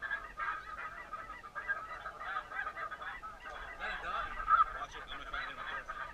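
A chorus of many snow geese calling at once, a dense stream of overlapping high yelping calls with no break; one call stands out louder about four and a half seconds in.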